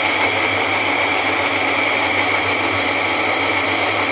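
Electric kitchen blender running steadily at speed, grinding yogurt, almonds, fried onion and ground coconut into a paste for curry gravy.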